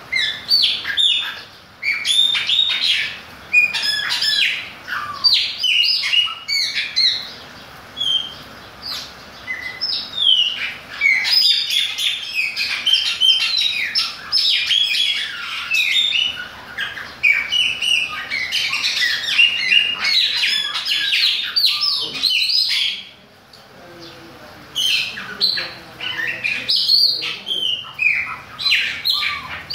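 Caged chopi blackbird (Gnorimopsar chopi) singing: a long run of quick, varied whistled phrases that slide up and down in pitch, breaking off for about two seconds about three-quarters of the way through before starting again.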